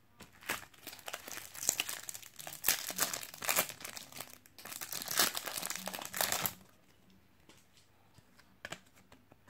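Foil sachet of Panini Adrenalyn XL trading cards crinkling as it is handled and torn open, for about six and a half seconds. Then only a few faint clicks as the cards are taken out.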